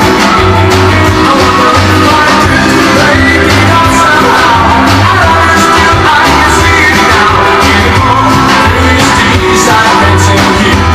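Rock and roll record playing loudly, with a singer and a walking bass line.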